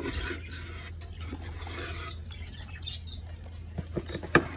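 Scuffling and rustling as a nest box and its bedding are handled, with faint bird chirps, then a run of sharp knocks near the end, the loudest just before it stops.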